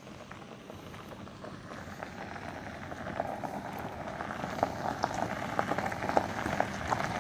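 Footsteps crunching along a trail: a dense crackle of small clicks that grows steadily louder.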